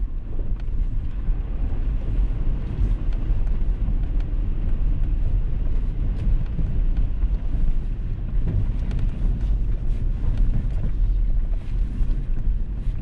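Toyota 4Runner driving slowly through a shallow, narrow creek crossing: a steady low vehicle rumble with a wash of water noise from the tyres and scattered small knocks.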